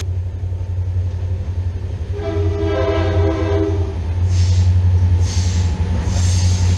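Approaching diesel locomotive with a steady low engine rumble, sounding one blast of its multi-note air horn from about two to four seconds in. Later there are a few short bursts of hiss.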